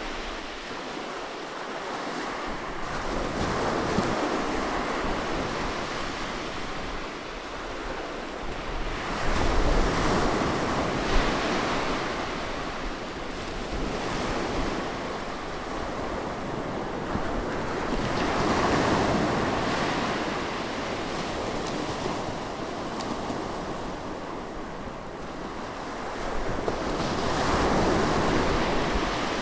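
Ocean surf breaking close by, a steady wash of waves that swells and ebbs about every nine seconds.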